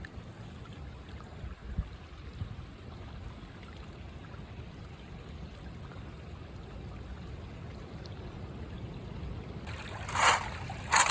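Creek water running steadily over rocks, with a few louder noises near the end.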